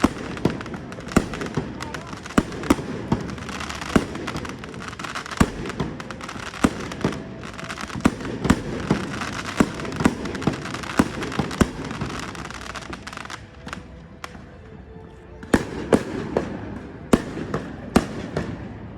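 Aerial fireworks bursting in quick succession: many sharp bangs over a continuous crackle. The bangs thin out briefly about two-thirds of the way in, then pick up again.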